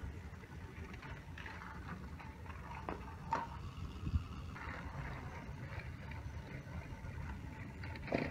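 Motorized Thomas & Friends toy trains whirring along plastic track, wheels rattling, with a few clicks along the way. Near the end, a brief clatter as the trains crash into each other.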